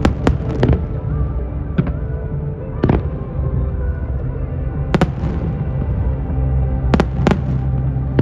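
Fireworks bursting overhead in sharp bangs every second or so, some in quick pairs, over steady music.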